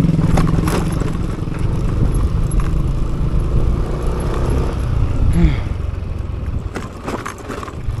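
Motorcycle engine running steadily while riding, with a few sharp knocks and rattles and a drop in engine level near the end.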